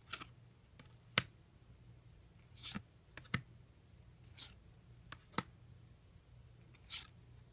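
Weiss Schwarz trading cards being flipped through by hand: a few short swishes of cards sliding against each other and several sharp card snaps and clicks, spaced a second or two apart.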